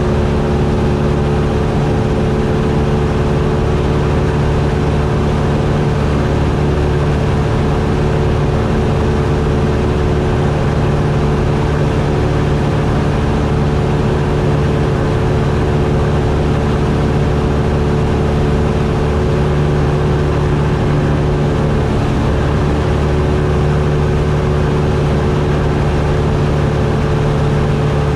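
Cessna 172's piston engine and propeller droning steadily in level flight, holding an even pitch and loudness throughout.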